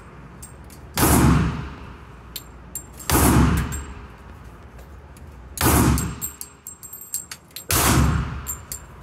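Four pistol shots at a slow, aimed pace, about two seconds apart, each ringing out with a long echo in an indoor range. Light metallic clinks fall between the shots.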